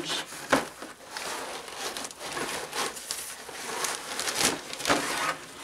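Fabric carrying bag rustling as a large LED ring light is handled and lifted out of it, with a few sharp knocks and taps along the way.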